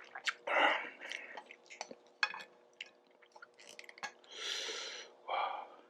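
Instant ramen being eaten close to the microphone: wet chewing and small mouth clicks, with airy slurps about half a second in, a longer one around four and a half seconds in, and a shorter one soon after.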